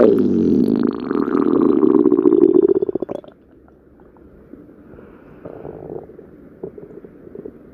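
A person's stomach growling: one loud, drawn-out rumble lasting about three seconds, followed by a few faint gurgles.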